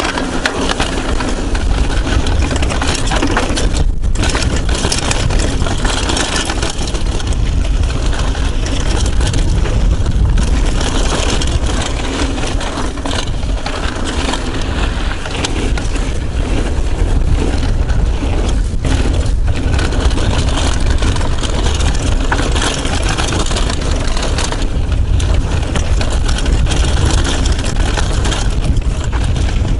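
Steady wind rush and buffeting on a chest-mounted action camera's microphone as a mountain bike descends a dirt singletrack at speed, with the tyres rumbling and the bike rattling over the dirt underneath.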